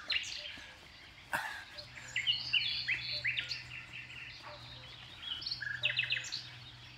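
Small birds chirping and twittering in short, quick high notes through most of the stretch, with a short knock about one and a half seconds in and a faint steady low hum underneath.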